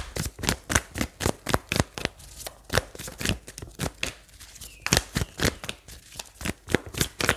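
A deck of tarot cards being shuffled by hand: a quick, even run of sharp card clicks, about three to four a second.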